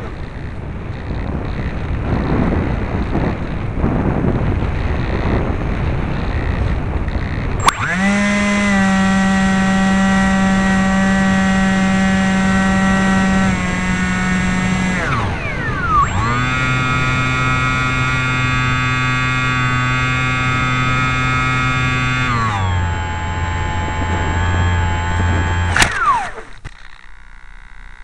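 Electric motor and propeller of a Bixler RC plane, heard from on board: a steady whine that starts about 8 seconds in and holds at a few throttle settings. It sweeps down briefly, steps lower twice, then cuts off near the end. Before the motor starts there is a rushing noise, wind over the onboard camera in gusty air.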